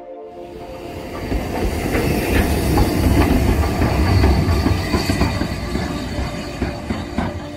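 Steam locomotive 30925, a Southern Railway Schools class 4-4-0, running past and away with its tender, wheels clicking over the rail joints. The rumble builds over the first couple of seconds and fades as it pulls off.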